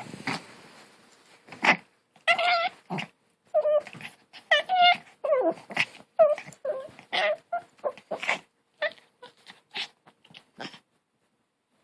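Long-haired Chihuahua puppy making a run of short, high-pitched growls and whines, one after another, some rising or falling in pitch.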